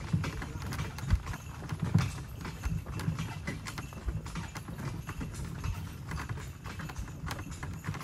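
Horse's hooves clip-clopping at a walk on a dirt road while the horse-drawn cart rolls along with a steady low rumble.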